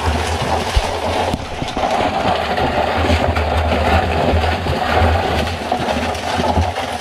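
Cloth sack rustling and light clicking of crabs as they are shaken out into a plastic barrel, over a steady low rumble.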